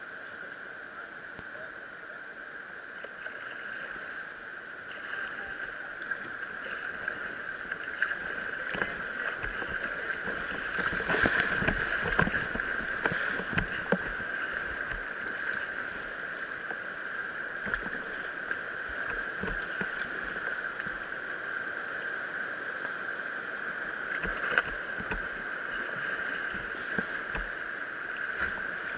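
River rapids rushing around a kayak, heard low at the waterline, with water splashing against the boat and several short knocks. It swells loudest about eleven to fourteen seconds in, where the boat runs through rougher water.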